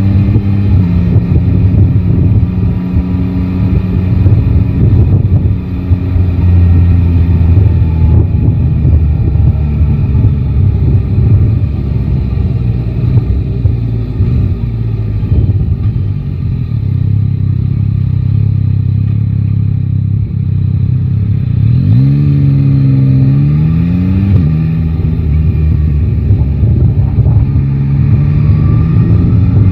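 Yamaha Tracer 9 GT's 890 cc inline-three engine running under way, with wind rushing on the microphone. A little over twenty seconds in it revs up twice in quick succession, its pitch rising and then dropping at each gear change, and it starts rising again near the end.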